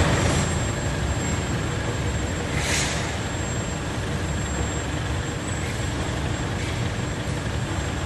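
Aluminium melting furnace running with a steady low rumble and a thin, steady high whine, with a brief hiss a little under three seconds in.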